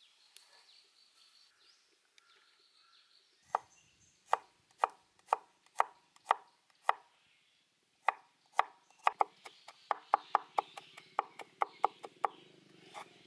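Knife chopping garlic cloves on a wooden cutting board: a few seconds in, single cuts start at about two a second, then after a short pause give way to a faster run of mincing strokes at three or four a second.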